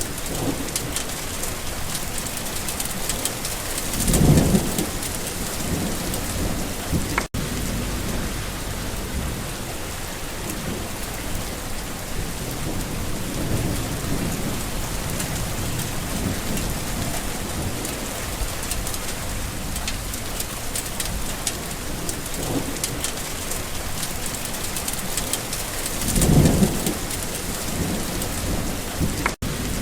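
Steady summer rain pattering on surfaces, with a low rumble of distant thunder swelling about four seconds in and again near the end. The sound drops out for an instant twice.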